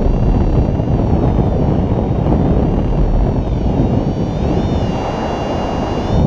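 Airflow buffeting the microphone in paraglider flight: a steady low rumbling wind noise. A faint high whine wavers in pitch above it.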